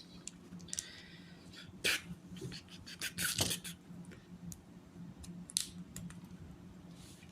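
Hard plastic Lego Technic pieces being handled and fitted, giving scattered sharp clicks and a brief rustle. A faint steady hum runs underneath.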